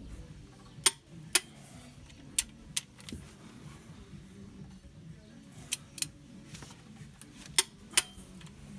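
Sharp metallic clinks of tools or parts being handled, mostly in pairs a fraction of a second apart, over a low steady hum.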